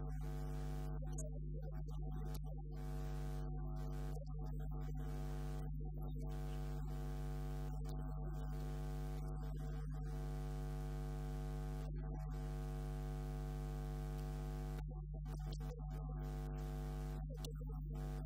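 Steady electrical mains hum: a low buzz with a stack of evenly spaced overtones.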